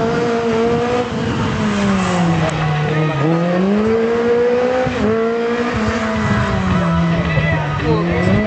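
A racing hatchback's engine revving hard, its pitch climbing and dropping several times as the car accelerates and slows through a slalom course.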